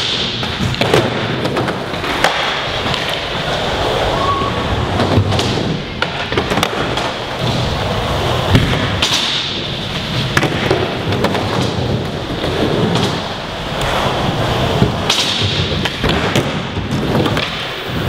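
Skateboard wheels rolling over concrete and wooden ramps, broken by sharp clacks and thumps of the board popping, hitting obstacles and landing.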